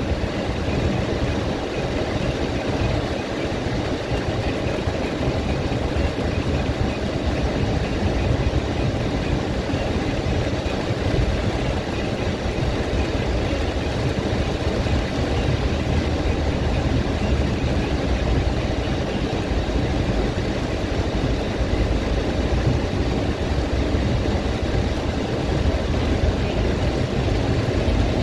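Steady noise inside a car moving slowly through heavy rain: a low engine and tyre rumble on a wet road, under an even hiss of rain on the car.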